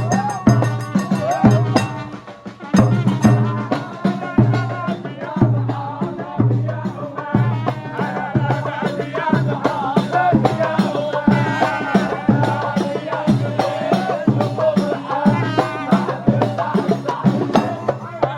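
Moroccan wedding folk music: voices singing a wavering melody over drums and hand percussion, with a deep drum stroke about once a second. It drops briefly about two seconds in, then the beat resumes.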